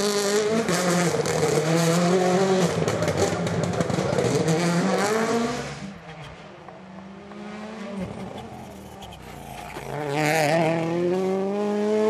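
WRC Rally1 cars' turbocharged four-cylinder engines revving hard through gear changes, the pitch rising and falling. About six seconds in the sound drops to a quieter, more distant engine. Near the end it swells again, the pitch climbing as a second car comes close under acceleration.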